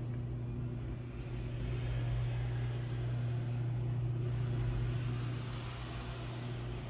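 Garage door opener motor running steadily as the door closes after being triggered from the car's HomeLink button, a steady hum.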